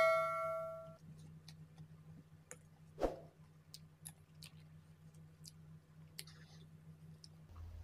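A bell-like chime rings and fades away over the first second. Then scattered soft clicks and one louder tap about three seconds in come from a fork and spoon working through a plate of instant noodles.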